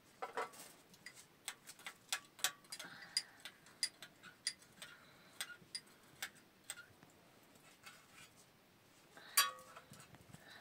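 Metal teaspoon stirring tea in a small tea glass, clinking against the glass in sharp, irregular ticks, with one louder clink near the end.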